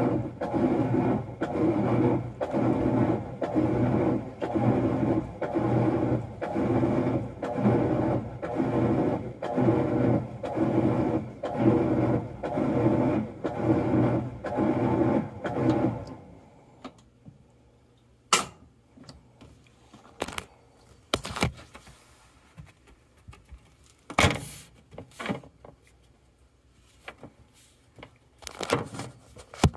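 Maytag Bravos MCT top-load washer agitating on a power wash cycle, its motor humming in regular strokes about once a second as it churns a full tub of water around an agitator that is stuck on its shaft. The agitation stops about halfway through, leaving only a few scattered clicks and knocks.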